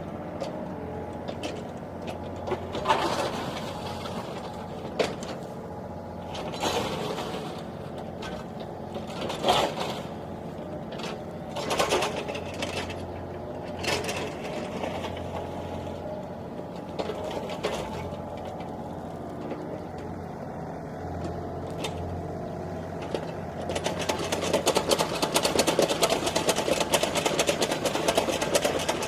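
A small machine running with a steady low hum and swells every couple of seconds, breaking into a fast, even clatter near the end.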